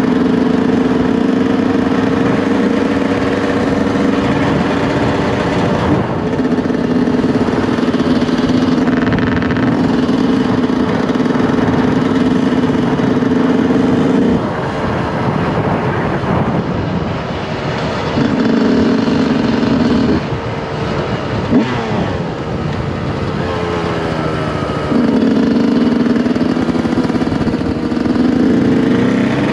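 Yamaha YZ125's single-cylinder two-stroke engine running at high revs under way. It holds steady for about fourteen seconds, then eases off and comes back on several times, with the pitch sliding down and up.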